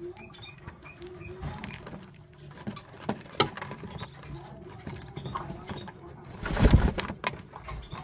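Barbary doves (puter) in a cage: short low coos repeat in the first second or so, then handling knocks and clicks, a sharp one about three and a half seconds in, and a loud rustling flurry about six and a half seconds in.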